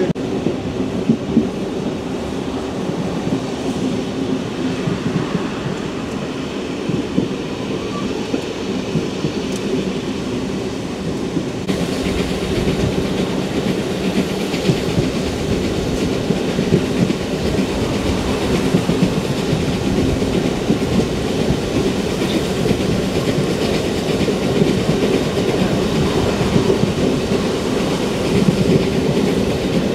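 Steam-hauled passenger train running along the line: a steady rolling rumble with a low hum and scattered clicks, growing a little louder and brighter about twelve seconds in.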